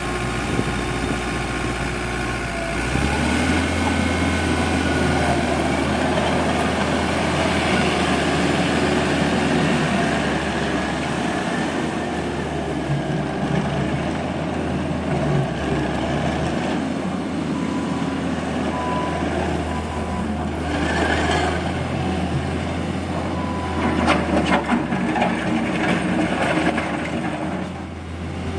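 Takeuchi TL250 compact track loader's diesel engine running, rising to a higher speed about three seconds in and working steadily with machine noise, with a short series of beeps near the middle and a few clanks near the end.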